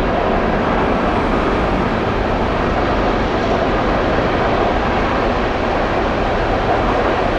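A long CN freight train of empty bulk cars rolling past, with steady wheel-on-rail noise.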